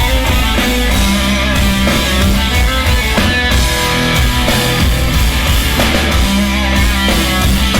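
Punk rock band playing live at full volume: distorted electric guitars, bass and drums in a steady, dense wall of sound.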